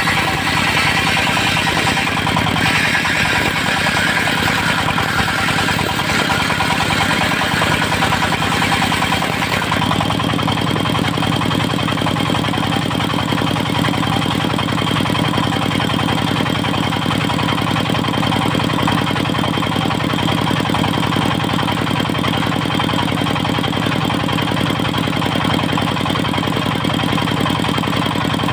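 Dongfeng diesel engine running steadily, driving a circular sawmill blade. About ten seconds in, a higher hiss drops away and the engine's lower note fills out; a steady high whine stays on.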